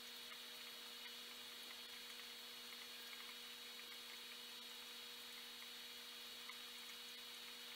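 Faint steady hum of an aquarium air pump driving the bubble streams, with a constant high hiss above it.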